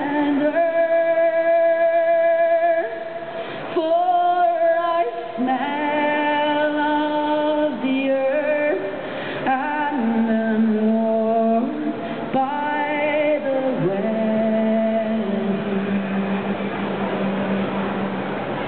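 Solo female voice singing a cappella into a stage microphone, drawing out a slow line of long held notes, the last one held for several seconds near the end.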